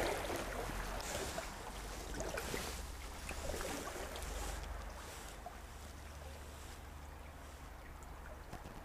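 Small stream flowing past, with a steady low wind rumble on the microphone; the sound drops a little about halfway through.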